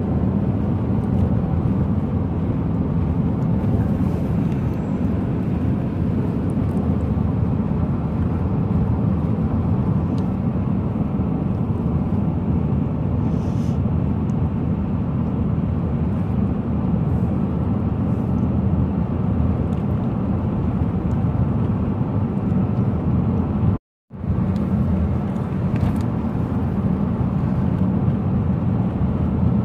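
Steady road and engine noise heard from inside a moving car, with a split-second dropout a little over three-quarters of the way through.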